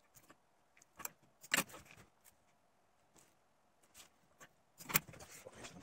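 Masking tape being pulled off its roll and torn into strips: short rasping rips with small clicks and rustles between them. The two loudest rips come about a second and a half in and near the end.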